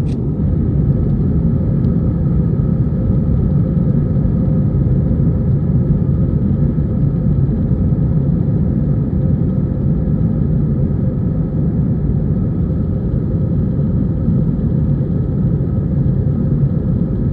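Steady low drone of a jet airliner's engines and airflow, heard from inside the cabin, with one short click right at the start.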